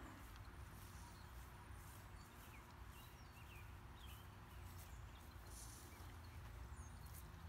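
Near silence: quiet outdoor background with a faint low rumble and a few faint, short, high chirps.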